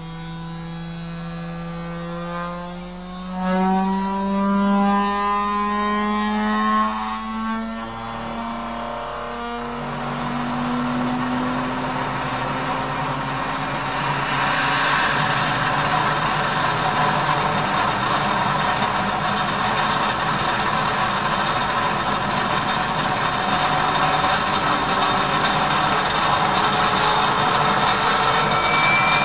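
Vacuum cleaner motor spinning a CD up to high speed: a whine that rises in pitch over the first ten seconds or so, then a steady rushing whine that grows slowly louder.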